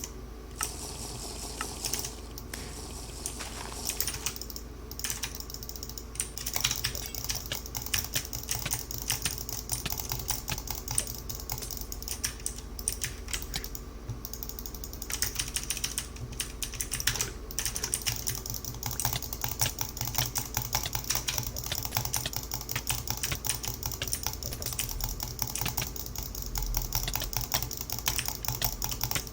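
Typing on a computer keyboard: a fast, irregular run of key clicks with a couple of brief pauses.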